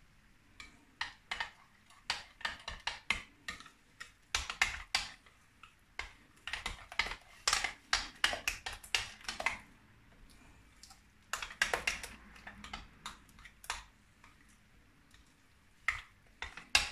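Spoon clinking and scraping against a glass mixing bowl while yogurt and tandoori masala are stirred together: quick irregular runs of clicks, with a short lull partway through and a sparser stretch near the end.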